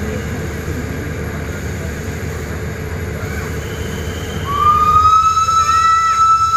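Steam locomotive approaching with a low rumble. About four and a half seconds in, its whistle sounds one long, steady high note that slides up slightly as it opens.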